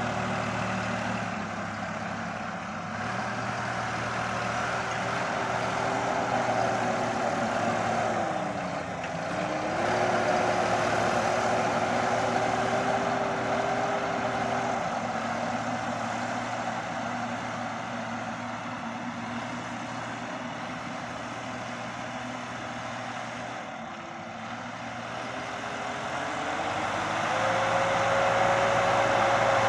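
Deutz-Fahr 5070 D tractor engine running steadily while ploughing. Its pitch sags briefly about nine seconds in and again near 24 seconds, then rises and holds higher near the end.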